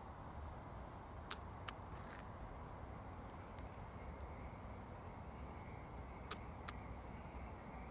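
Faint steady outdoor background rumble, broken twice by a pair of sharp clicks about a third of a second apart, the first pair over a second in and the second pair near the end.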